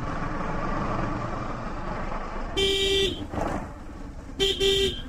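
A vehicle horn honks: one blast about halfway through, then two quick short toots near the end. Under it runs the steady noise of the moving motorcycle.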